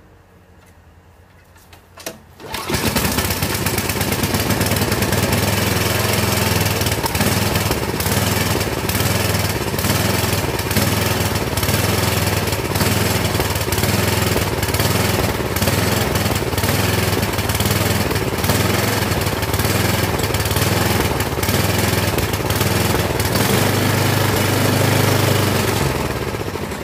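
Older Craftsman snowblower's small gasoline engine pull-started, catching about two and a half seconds in and then running steadily at speed; its sound drops off near the end.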